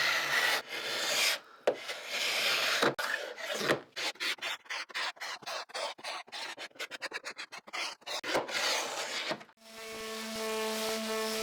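Hand tool rubbing and rasping against wood in long strokes, then a quick run of short scrapes. About nine seconds in, a steady buzzing hum starts.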